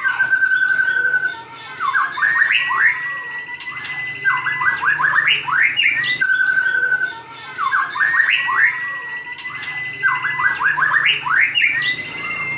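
White-rumped shama (murai batu) singing: a held whistle, a run of quick sweeping notes, then a long level whistle. The same phrase comes twice, about six seconds apart.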